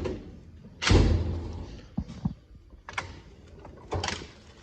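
Steel drawers of a Snap-on Epic roll-cab tool box being worked: a loud thud about a second in as a drawer shuts, followed by several lighter clunks and clicks as the next drawer is pulled open.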